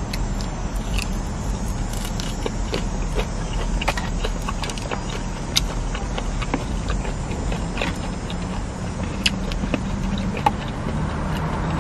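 Close-up eating sounds: chewing fried imperial rolls, with scattered small clicks and ticks, over a steady low vehicle rumble.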